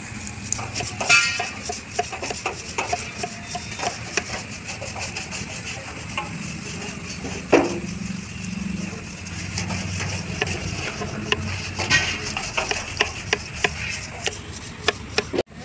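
A rag scrubbing over the outside of a wet steel diesel tank from a TATA 709 truck, with many small scrapes and clicks of hands and cloth on the metal and one sharper knock about halfway through. A steady low engine hum runs underneath.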